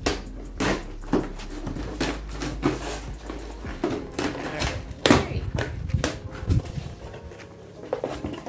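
Cardboard shipping box being opened by hand: the packing tape is scraped and torn open with a plastic comb and the flaps pulled apart, a run of irregular sharp scratches and crackles, the loudest about five seconds in.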